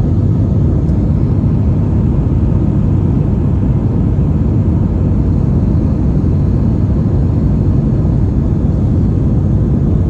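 Steady low cabin roar of an Airbus A320 climbing after take-off, the engines and rushing air heard from inside the cabin, unchanging throughout.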